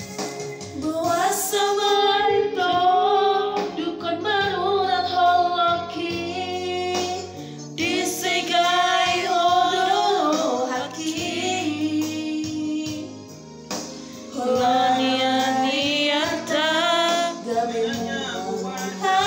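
A woman singing a Batak-language pop song with vibrato over an electronic keyboard backing track. The voice drops out for a short instrumental stretch about halfway.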